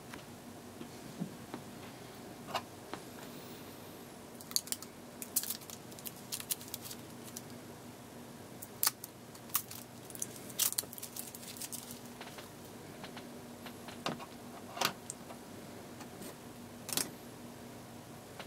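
Small clear acrylic pieces clicking and tapping against each other as they are handled and pressed together, in irregular sharp ticks that are busiest in the middle. A faint steady hum runs underneath.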